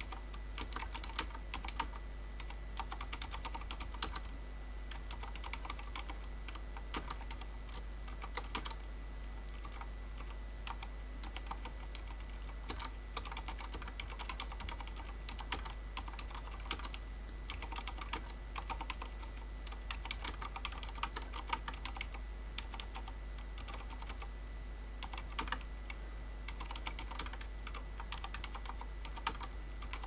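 Touch typing at about 50 words per minute on a Fnatic Gear miniSTREAK mechanical keyboard with Cherry MX Silent Red switches, which are linear and dampened. The keystrokes come fast and uneven, with brief pauses between runs.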